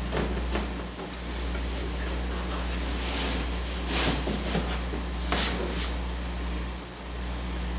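Scissors cutting through raw linen canvas in a run of separate snips from about three seconds in, the loose fabric rustling, over a steady low hum.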